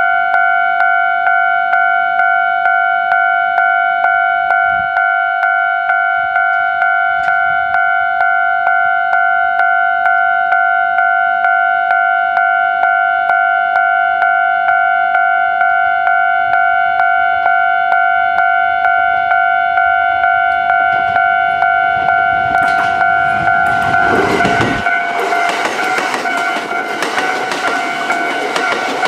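Japanese level-crossing warning bell ringing on a steady pitch at about two and a half strikes a second. About 23 seconds in, a Kintetsu 1400 series electric train starts rushing past the crossing with loud wheel and rail noise while the bell keeps ringing.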